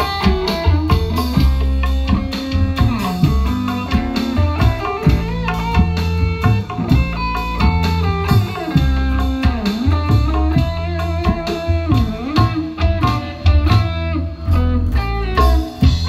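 Electric guitar playing an amplified lead melody with string bends and slides over a steady drum and bass backing.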